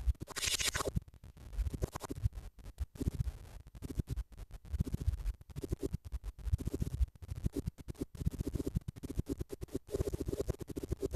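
Scratchy, choppy electronic sound design from a horror film soundtrack: rapid, irregular scratching bursts with low thuds underneath, with no steady melody.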